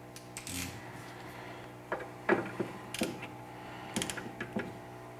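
Hand ratchet clicking in a few short runs, with metal tool clinks, as it turns a rear anti-roll bar link fastener, over a steady low hum.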